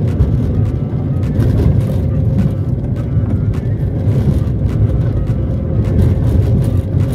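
Car driving along an unpaved dirt road: a steady low rumble of engine and tyres on the dirt surface, with a few light knocks and rattles from the bumpy road.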